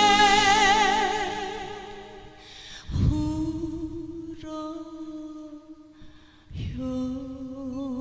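A woman sings a Korean ballad live into a microphone over musical accompaniment. A long note with vibrato fades out about two seconds in, and new lines begin about three and six and a half seconds in.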